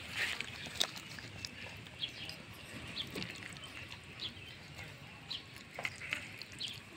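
A puppy eating rice off a plastic plate: quick, irregular chewing and smacking clicks.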